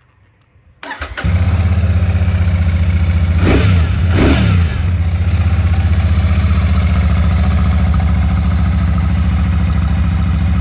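Royal Enfield Shotgun 650's parallel-twin engine being started: a brief crank about a second in, catching almost at once, two quick throttle blips a few seconds in, then a steady idle.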